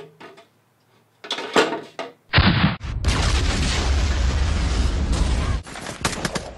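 Battle sound effects from a war film: a loud blast a little over two seconds in, then a dense, continuous din of machine-gun and rifle fire over a heavy low rumble, breaking into separate shots near the end.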